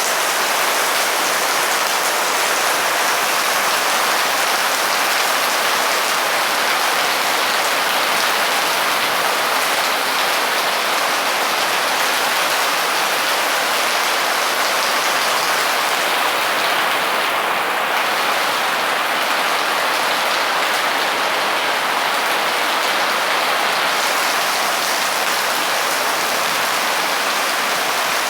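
Heavy rain pouring down in a steady downpour, a loud, even hiss without letup.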